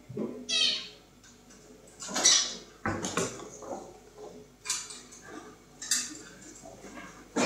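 Kittens scuffling on a granite floor: scattered clatters, knocks and scrapes, like a light plastic dish being knocked about. A short high squeak comes about half a second in.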